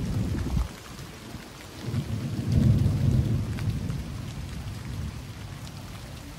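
Heavy rain falling, with a deep rumble that breaks off within the first second, swells again about two seconds in and then fades.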